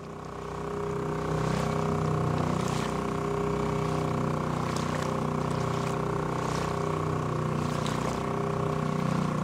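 Boat engine running at a steady speed, a constant drone with a hiss of water over it; it fades in at the start.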